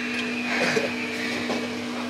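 A steady low machine hum, with a couple of faint clicks.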